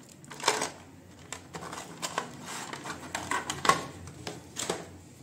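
Handling noise as a wireless neckband and its cable are pulled out of a moulded plastic packaging tray: a handful of scattered clicks, taps and scrapes of plastic, with a sharp click about three and a half seconds in.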